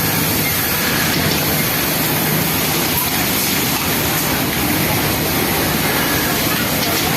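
Steady, dense din of industrial sewing machines running on a garment-factory floor, with a low hum that comes and goes.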